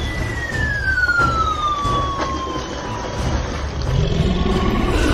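Cartoon falling-whistle sound effect: one whistle tone sliding steadily down in pitch over about three seconds, over a steady low rushing noise. A low rising rumble comes in near the end.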